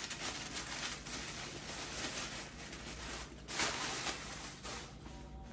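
Tissue paper and a cloth dust bag rustling and crinkling as a handbag is unwrapped by hand, with a louder rustle about three and a half seconds in.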